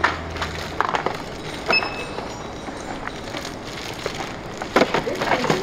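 Shop background noise: scattered knocks and clatter of items being handled, with one short high electronic beep about two seconds in and a denser burst of clatter near the end.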